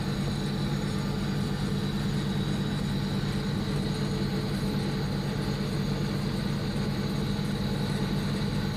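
Steady machine hum with a low drone and a constant hiss, unchanging throughout.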